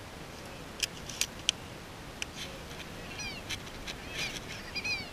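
Geese calling: high, yelping calls, several overlapping, repeating from about three seconds in. A few sharp clicks come in the first couple of seconds.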